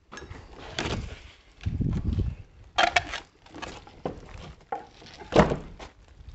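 Old wooden door being pushed open and passed through: knocks, thuds and scraping, with a loud thud about five and a half seconds in.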